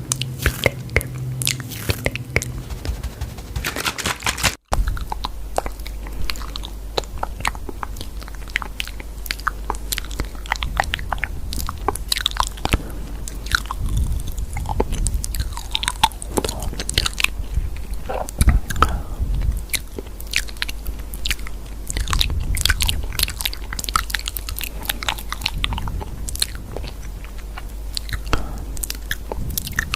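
Dense, irregular crisp clicks and crunches, close to the microphone. After a brief dropout about five seconds in, a low hum runs under them.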